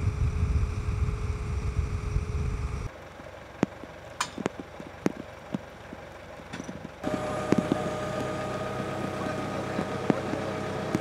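Wind and boat engine rumble on the open water, cut off suddenly about three seconds in. Then a quieter stretch with scattered sharp knocks. From about seven seconds comes the steady hum of a truck-mounted crane's engine running, with further knocks, as it hoists a fishing boat on cables.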